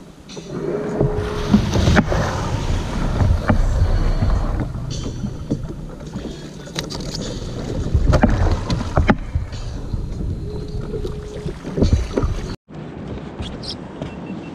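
Plastic fishing kayak being launched through small surf, with water washing and sloshing around the hull, wind buffeting the microphone, and sharp knocks of the hull and gear as the paddler climbs aboard. The sound cuts off abruptly near the end.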